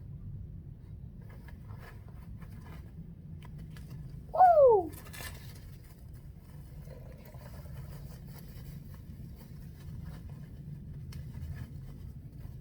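Scattered light rustling, scratching and clicks of new pit bike parts being unboxed and handled, over a steady low hum. About four and a half seconds in comes one loud, short squeak that falls steeply in pitch, followed by a sharp click.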